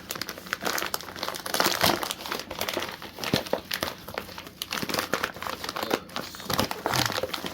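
Packaging crinkling and rustling as an outer mailer is opened to get at the box inside: a dense, irregular run of crackles and small clicks.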